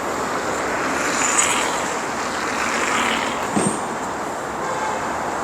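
Street traffic noise: a steady hiss with a car passing, swelling about a second in, and a short knock just after the middle.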